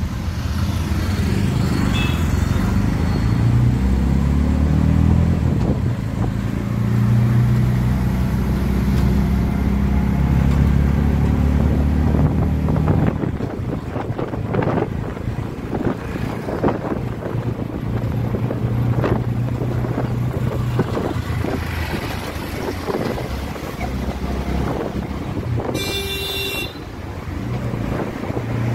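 Auto-rickshaw engine running under way, heard from inside the open cabin amid road traffic, its note shifting as it speeds up and slows in the first half, then rougher with road knocks. A vehicle horn gives one short toot near the end.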